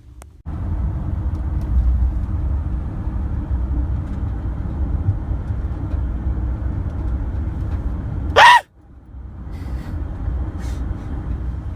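Steady low road rumble of a moving car, starting abruptly about half a second in. Two-thirds of the way through, a single loud, very short high-pitched cry cuts across it, and the rumble drops out briefly before resuming.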